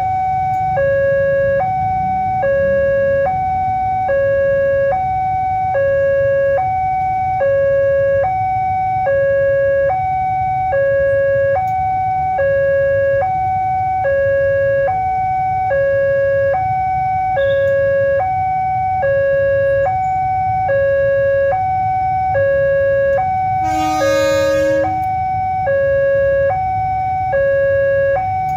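Railway level-crossing warning alarm sounding a steady two-tone high-low pattern, about one pair a second, over the low rumble of waiting motorcycle traffic. A short, loud horn blast cuts in about three-quarters of the way through.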